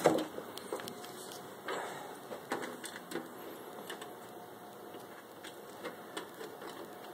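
Scattered clicks and knocks of hands working on a desktop PC's metal case and parts, with a sharper knock at the start.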